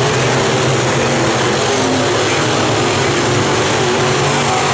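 Several dirt-track race car engines running steadily as the cars circle the track.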